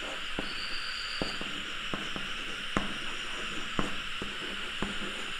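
Chalk tapping and scraping on a blackboard as words are written: irregular sharp taps about two a second over a steady background hiss.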